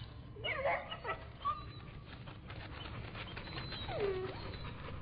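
A dog whimpering and yelping. There are short up-and-down cries about half a second in, a brief cry around a second and a half in, and a falling whine about four seconds in, with faint scuffling between them.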